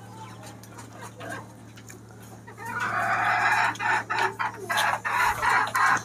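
A flock of desi chickens clucking, faint at first, then about halfway through a loud, rapid run of squawking clucks that keeps going.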